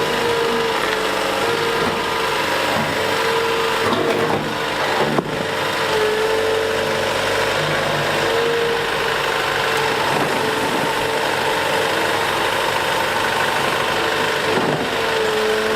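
Liebherr A 910 compact wheel excavator's diesel engine running steadily while the machine works, with a whine that comes and goes as the hydraulics are worked. A brief clatter of knocks comes about four to five seconds in.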